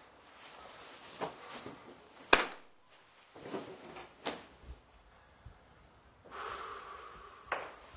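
A man moving about a small bedroom and lying back on a bed: a few scattered knocks and rustles, the loudest a sharp knock a little past two seconds in, then a longer rustle near the end.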